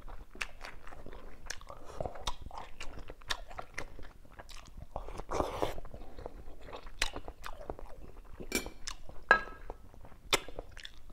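A person eating up close: chewing, with many sharp clicks from the mouth and chopsticks against a white ceramic bowl, and a short rushing noise about five seconds in.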